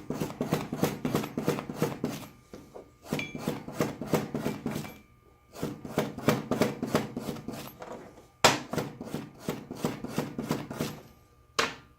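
Hand-tool work on a rusty machinist jack's threaded screw: runs of quick, rhythmic metal clicks and scrapes, about four or five a second, each lasting a couple of seconds with short pauses between. One sharp knock comes near the end.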